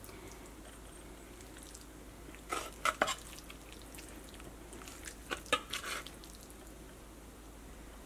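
A metal spoon scraping and tapping against a pan while lifting pieces of fried chicken in thick masala onto rice: two short clusters of clinks and scrapes, about two and a half and five and a half seconds in, over a faint steady hum.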